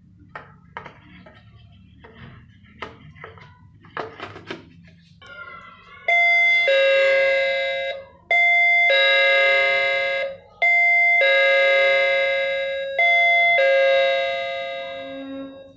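Mains-powered electric doorbell playing a two-note ding-dong chime through its built-in speaker, four times in a row starting about six seconds in, each chime fading away. Before it there are a few scattered clicks and knocks.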